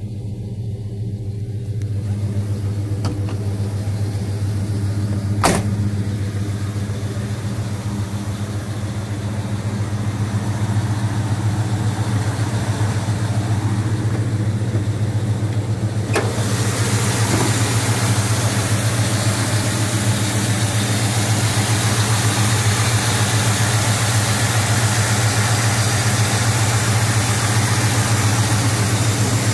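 1987 Chevrolet C10 pickup's engine idling steadily. There is a single click about five seconds in, and a louder hiss joins about halfway through and stays.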